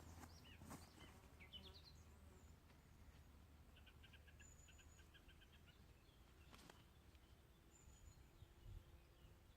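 Faint birdsong in quiet open country: a few high chirps, then a run of quickly repeated notes about four seconds in, with thin high whistles.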